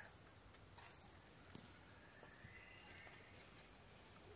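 Steady, high-pitched drone of insects in the forest, with faint outdoor background.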